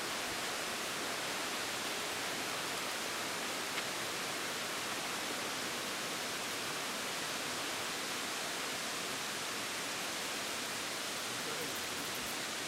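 A steady, even hiss of outdoor background noise with no distinct events.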